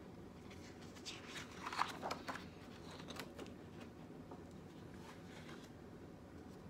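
Pages of a spiral-bound coloring book being turned and handled: a cluster of paper rustles and crisp clicks about one to two and a half seconds in, then a few lighter ones around three seconds, over a faint steady hum.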